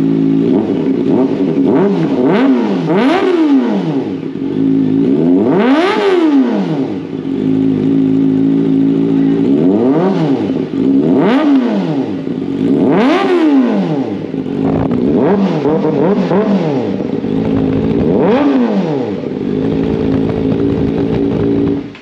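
Kawasaki ZX-4RR's 399 cc inline-four, breathing through an aftermarket Zeus slip-on muffler, idling and being blipped on the throttle about eight times. Each rev rises sharply and falls back to idle. The engine cuts off at the very end.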